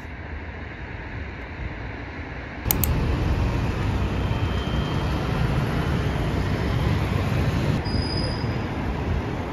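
City street traffic: a steady rumble of engines and tyres as a double-decker bus and cars go by. A sharp click about a third of the way in, after which the traffic is louder.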